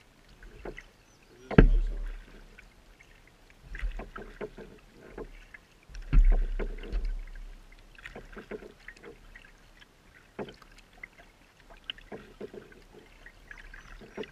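Kayak paddling on calm water: paddle blades dipping and splashing, with drips between strokes, in a Pelican Quest 100 kayak. Two louder thumps stand out, about one and a half and six seconds in.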